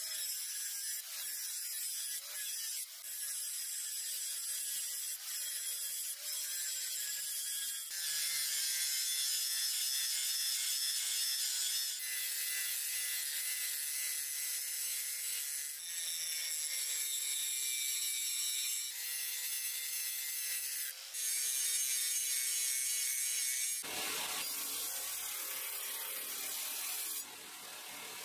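Electric angle grinder running with a steady whine, its disc grinding the steel of a leaf-spring knife blade, in several short takes. Near the end it gives way to a rougher, lower belt grinder sanding the blade.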